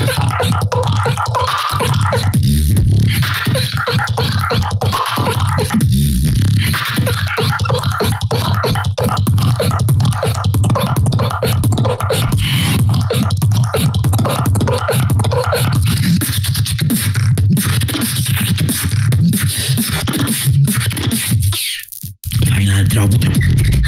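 Solo beatboxing into a handheld microphone: deep bass tones and sharp mouth clicks and snares in a fast, steady rhythm, cutting out for a moment near the end before picking up again.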